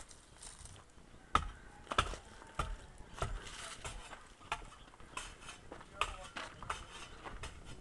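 Irregular sharp knocks and clacks, roughly one every half second to a second, with faint voices in the background.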